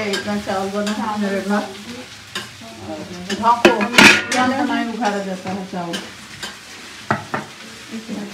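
Metal kitchenware clattering as a steel spoon scrapes an aluminium pot of cooked rice and a steel plate is set on it as a lid, with sharp clanks, the loudest about four seconds in. A wavering pitched sound runs underneath for much of the time.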